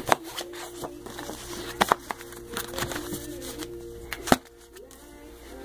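Glossy magazines being handled and shuffled, with a few sharp slaps as they are put down: one at the start, two close together just before two seconds in, and one a little after four seconds. Faint music plays underneath.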